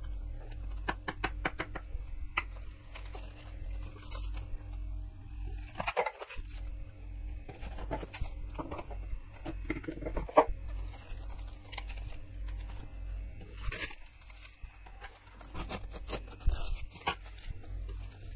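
Plastic cling film crinkling and rustling as minced turkey is rolled up in it into a sausage, with scattered sharp clicks and taps, a spoon scraping a steel bowl near the start. A steady low hum runs underneath.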